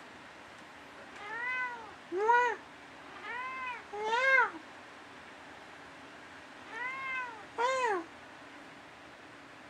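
Domestic cat meowing: six short meows that rise and fall in pitch, in three pairs about a second and a half apart, each pair a softer drawn-out meow followed straight away by a louder, shorter one.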